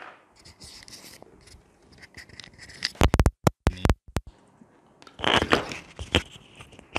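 Handling noise from a Saramonic Blink 500 wireless transmitter and its clip-on lavalier mic cable being fitted: light scraping and rustling, then a run of loud crackling clicks about three seconds in, with the sound cutting out completely between them, and more rustling clicks a couple of seconds later.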